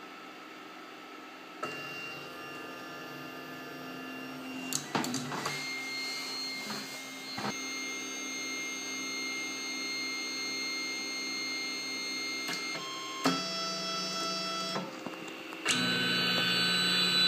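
Ultimaker 3D printer's stepper motors whining as the print head starts moving, a set of steady tones that jump to new pitches every few seconds as the moves change, with a few sharp clicks. The first second and a half is only a quieter hum, while the nozzle finishes heating.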